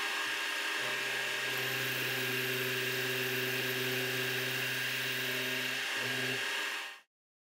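Milling machine spindle running a half-inch end mill through a metal part under flood coolant: a steady machine whine with a low hum that comes in about a second in. The sound cuts off abruptly near the end.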